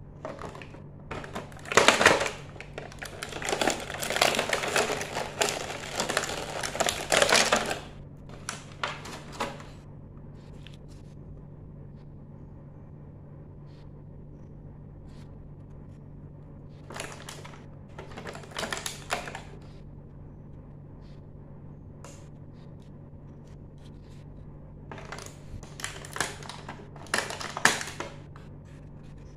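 Hard plastic dollhouse pieces being handled in a plastic packaging tray: clusters of clicks, taps and rustles, busiest in the first eight seconds or so, with shorter bursts past the middle and near the end, over a low steady hum.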